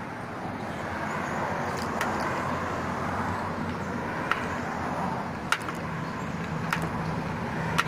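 Steady hum of passing road traffic with about five sharp, irregular clicks and taps, as of parts being handled and snapped into place during work on a car's quarter window.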